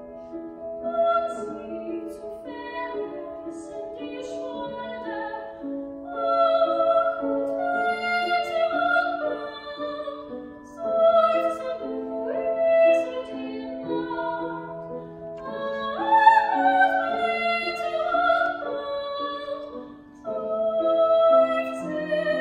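Soprano singing a German art song with grand piano accompaniment, her held notes carrying vibrato over soft piano chords. The voice rises to its loudest, highest phrase about sixteen seconds in.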